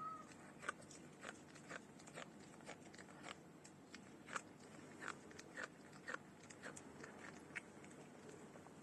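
Faint, irregular crunching, about two or three crunches a second: a cat chewing dry food.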